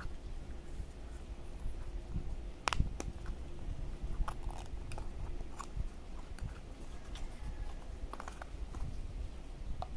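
Hands handling a white cardboard earphone box, fingers rubbing and sliding the card as the inner box is pulled from its sleeve, with scattered small clicks and taps of cardboard, the sharpest about three seconds in.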